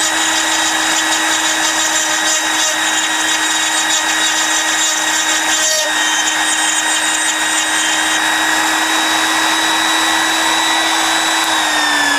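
High-speed Dremel drill running steadily at a high whine while its bit grinds a hole through a piece of glass kept under water to stay cool. Near the end its pitch starts to fall as the motor slows.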